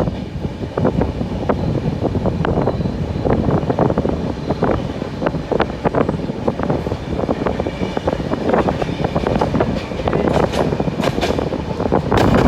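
Moving train heard from on board: a steady rumble with frequent short rattling clacks throughout.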